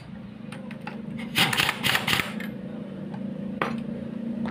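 Impact wrench hammering for about a second, a rapid rattle starting about a second and a half in, as it tightens the nut on a Honda Beat scooter's CVT drive pulley, with a single sharp click about a second later.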